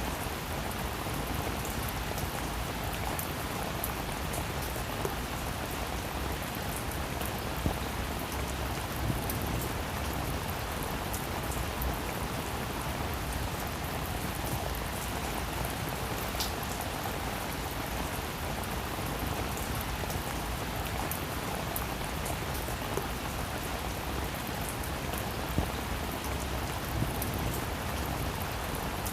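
Steady rain falling, with many small sharp drop ticks and a few louder ones now and then.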